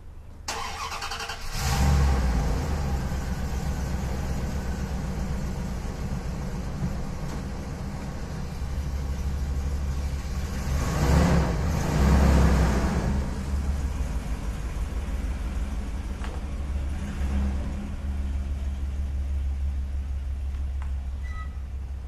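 Camper van engine starting about a second and a half in, then running steadily, swelling louder for a couple of seconds around the middle as it is driven.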